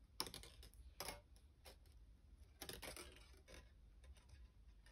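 Faint scratchy clicks and scrapes of thin wire being drawn by hand through the loops of a wire-wrapped cuff, a few short ticks scattered through, with a small cluster near three seconds in.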